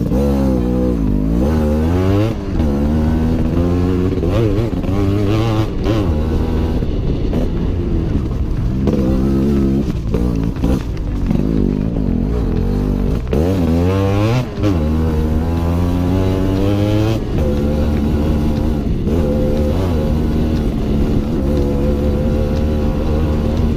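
Yamaha RX135's two-stroke single-cylinder engine being ridden, its pitch rising and falling again and again as the throttle is worked, then holding steadier for the last several seconds.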